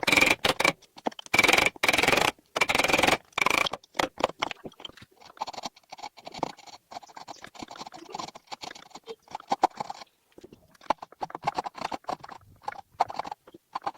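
Hand tool scraping and carving at a bird sculpture in irregular strokes, dense and loud for the first few seconds, then lighter and more scattered.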